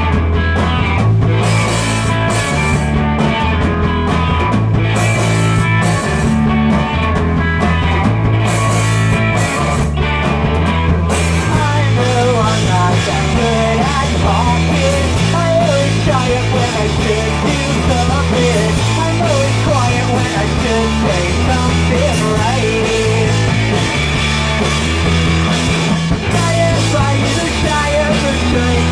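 A live rock band playing an instrumental passage: electric guitar lead over a bass line that steps between notes, with drums.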